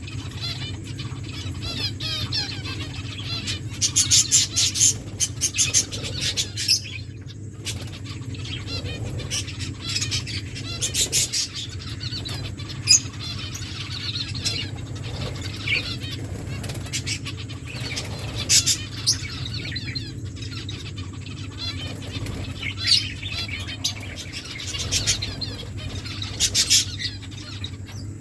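Aviary finches chirping and twittering continuously. Every few seconds there are short bursts of rapid wing flapping or sharp calls. A steady low hum runs underneath.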